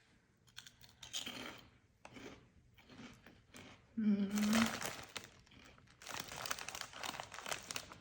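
Crinkling and crunching of a snack bag and of light, crunchy popped protein chips being eaten, strongest near the end, with a short hummed vocal sound about four seconds in.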